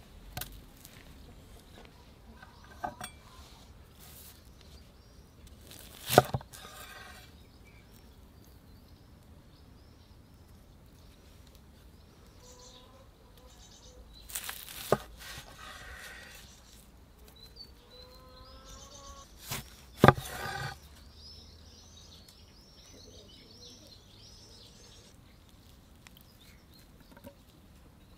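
Knife cutting through charred, fire-baked potatoes and knocking on a wooden board: a handful of sharp knocks a few seconds apart, the loudest about six and twenty seconds in. Birds call faintly in the background.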